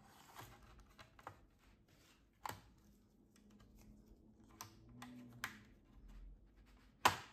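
Faint, irregular clicks from the laptop's bottom-cover clips and the plastic pry pick working along the cover's edge, as the cover is levered loose. About eight scattered clicks, the loudest just before the end.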